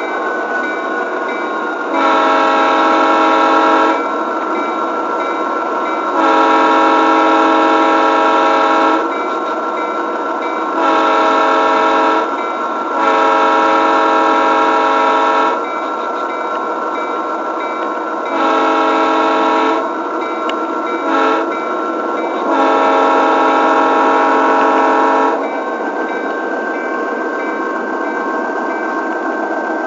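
Model railroad diesel locomotive's sound decoder sounding its air horn in the grade-crossing pattern, long, long, short, long, then another long, short, long, over the steady running of the engine sound through the model's small speaker.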